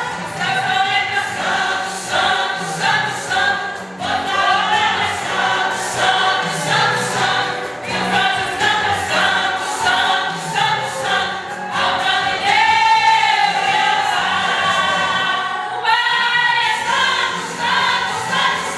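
A church vocal group singing a gospel song together over instrumental accompaniment with a steady beat.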